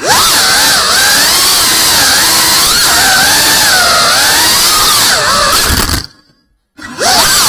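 Small FPV quadcopter's brushless motors and propellers whining, the pitch rising and falling as the throttle changes. Near the end the sound cuts out for about half a second, then picks up again.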